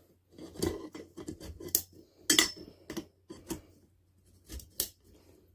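Support poles of a Halloween animatronic's frame being handled and fitted together: an irregular run of clinks, knocks and scrapes, with the sharpest knocks about two seconds in and near the end.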